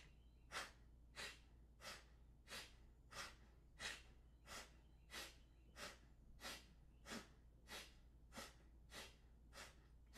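Sharp, forceful exhalations through one nostril at a time in alternate-nostril Kapalabhati (skull-shining breath), a short hissing puff about one and a half times a second in an even rhythm.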